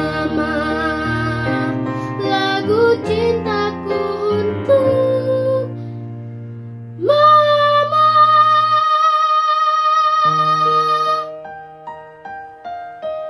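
A girl sings a slow Indonesian song with grand piano accompaniment. About seven seconds in she holds one long note with vibrato, and near the end the piano carries on alone.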